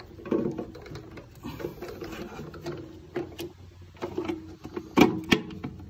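Plastic toilet outlet mechanism being handled and seated back inside a ceramic cistern: scattered clicks and knocks of plastic parts, with a louder cluster of knocks about five seconds in.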